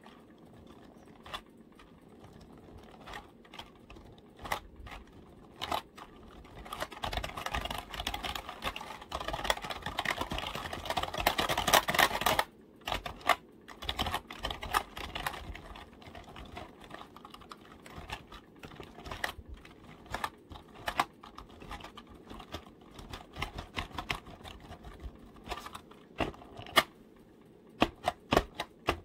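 Computer keyboard keys tapped and clicked by fingers: a fast, dense run of typing in the first half, then slower, scattered single taps.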